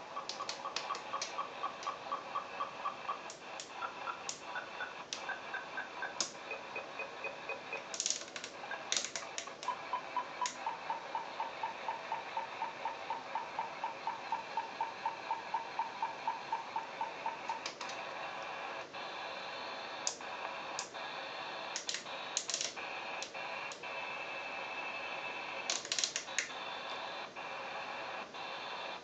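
Interference heard through a CB radio receiver tuned to 27.145 MHz: a regular train of short beeps, about four a second, that changes pitch now and then, with scattered sharp clicks, settling into a steadier buzzing hiss with clicks about two-thirds of the way in. The uploader suspects it is a harmonic from the signalling system of a nearby railway station.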